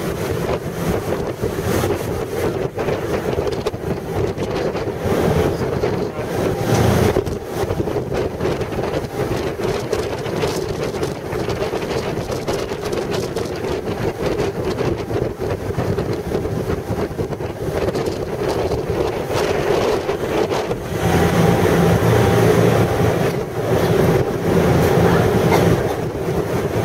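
Wind buffeting the microphone on the deck of a moving passenger ferry, over the steady hum of its engines and the rush of its wake. The engine hum grows louder about three-quarters of the way through.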